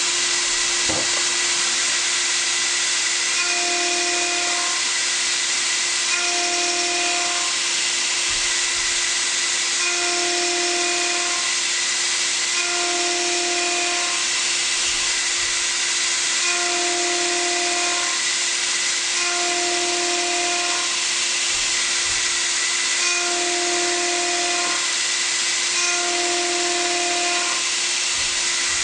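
Power-skiving (Scudding) machine cutting the teeth of a steel sprocket: a steady machining hiss over a constant hum, with a pitched tone that swells for about a second in a regular pattern roughly every three seconds as the tool makes its passes.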